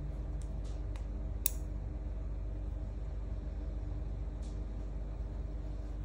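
Steady low hum, with a few faint light clicks and one sharp click about one and a half seconds in: the magnetic clasp of a seed-bead peyote bracelet snapping shut.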